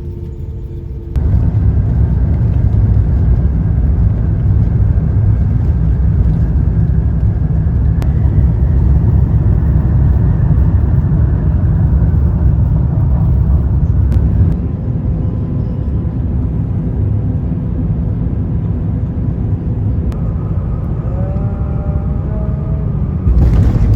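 Airliner engines heard from inside the cabin: a loud, steady low rumble that starts abruptly about a second in.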